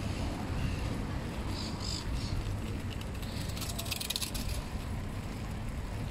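Steady low wind rumble on the microphone of a moving bicycle, over city street ambience, with a short burst of rapid high ticking a little past halfway.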